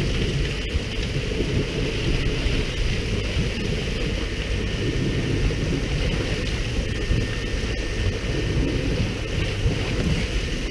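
Steady wind noise on the microphone over the open sea, with water rushing along a fishing boat's hull and the boat's low rumble underneath.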